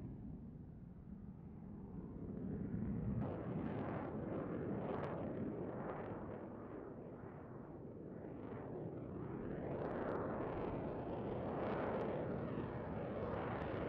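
F-35A Lightning II fighter jet's engine, a continuous rumble with crackle. It swells about three seconds in, fades a little, then builds again after about ten seconds.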